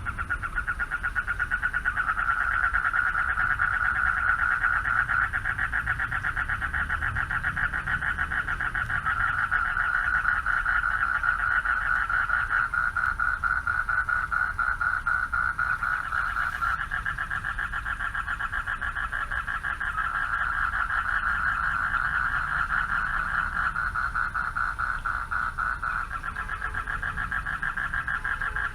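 Male frogs calling for mates from a pond, a steady chorus of fast, pulsing trills.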